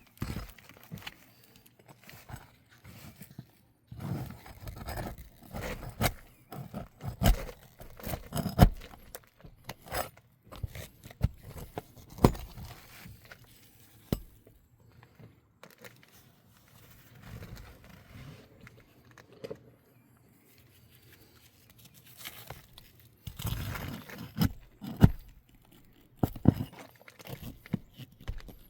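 Irregular clicks, knocks and scrapes of small hard objects being handled and worked on, with several sharper knocks about eight seconds in and again near the end.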